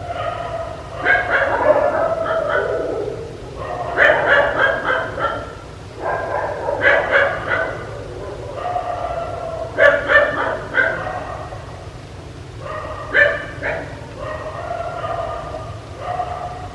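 Dog barking in six runs of several quick barks each, with short pauses between the runs.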